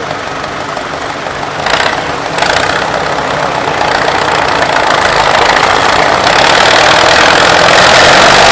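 Tandem Fordson Super Major tractor's diesel engine running hard under load while pulling the sled. It picks up about two seconds in and then grows steadily louder.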